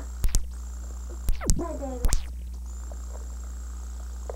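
Camcorder tape recording stopping and restarting: several sharp clicks in quick pairs over a steady low hum, with a brief high voice sound between them about a second and a half in.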